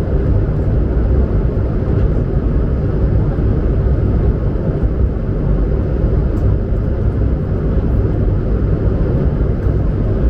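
Steady, loud rumble of an Airbus A220-100's Pratt & Whitney PW1500G geared turbofan engines heard from inside the passenger cabin.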